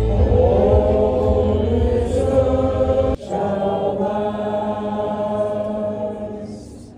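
A group of marching band members singing a slow song together in unison, holding long notes. The singing breaks off for an instant about three seconds in, then carries on and fades toward the end.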